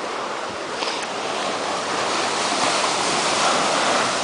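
Ocean surf breaking on a beach: a steady rushing wash that swells louder in the second half.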